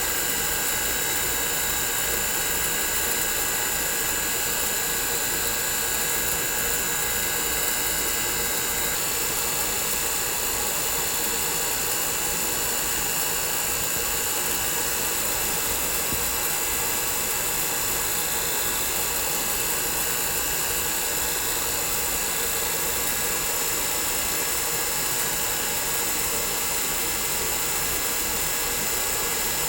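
Vacuum pump running steadily, pulling a vacuum on the oil of a dilution refrigerator's circulation pump to degas the dissolved helium-3/helium-4 mix: an even mechanical drone and hiss with a few constant high whines, some of which drop out about nine seconds in.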